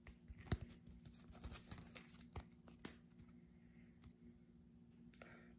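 Faint handling of Topps Match Attax trading cards: soft clicks and rustles of card stock being slid and flipped between the fingers, mostly in the first three seconds, with a sharper click about half a second in.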